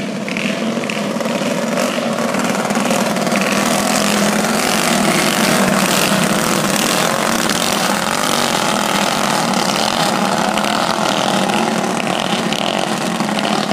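Several racing go-kart engines running at high revs as the karts lap a dirt oval, getting a little louder around the middle as a group of karts passes close by.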